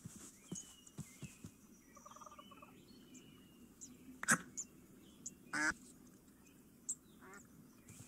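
Faint, scattered waterfowl calls: a short call about four seconds in and a longer one about a second and a half later, with light clicks in between.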